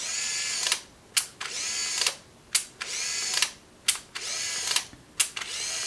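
Pleomax 30DLX 35 mm compact film camera fired repeatedly: a sharp shutter click, then a short motor whir rising and falling in pitch, about five times in a row. These are blank shots that wind the freshly loaded film on from the 'S' start mark to frame 1.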